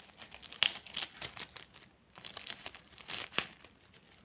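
Thin plastic wrapper crinkling and crackling as it is handled and pulled open, a run of sharp crackles that eases off briefly about halfway and picks up again.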